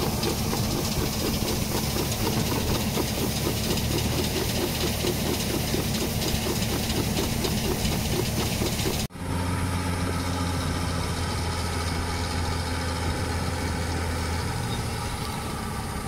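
Combine harvester running at work. For the first nine seconds it unloads wheat through its auger into a trailer, with a fast, even rhythmic beat over a steady noise. After a sudden break it changes to a steadier, deeper engine hum as the machine drops straw from its rear.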